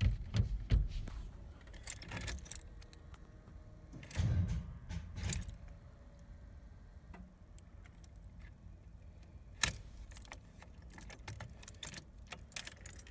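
Keys jangling on a key ring at the ignition of a 1990 Chevy Suburban, with clicks and low thuds just after the start and again about four to five seconds in. The engine does not start: a failed attempt on a weak, old battery.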